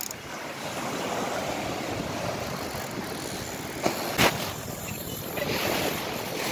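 Sea surf washing up the beach in a steady rush, with two brief knocks about four seconds in.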